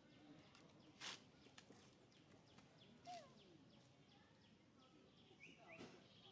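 Quiet outdoor ambience with faint bird chirps near the end and two brief soft knocks, about one and three seconds in.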